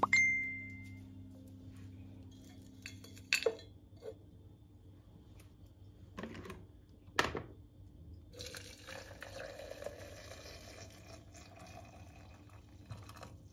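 A glass mug set down on a stone countertop with a short ringing clink, a couple of knocks as dried herb sprigs go into it, then water poured from an electric kettle into the glass mug for about five seconds, filling it for herbal tea.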